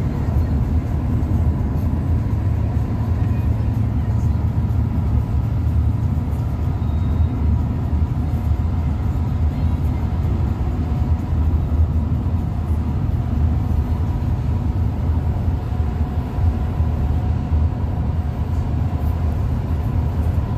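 Steady road noise inside a passenger van's cabin at highway speed: a constant low rumble of tyres and engine.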